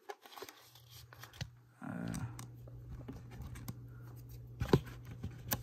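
Handling noise of disc cases: a case rubbing and shifting against a row of cases on a shelf, with scattered light clicks and a couple of sharper clicks near the end. A faint steady low hum sets in about two seconds in.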